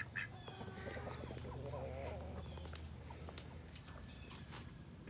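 Ducks quacking and chattering softly, a wavering run of calls about a second or two in.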